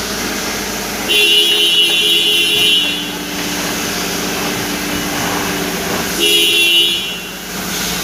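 Toyota Fortuner rolling slowly with its engine running, with no knocking from the front. Two held high tones sound over it: one from about a second in lasting nearly two seconds, a shorter one around six seconds in.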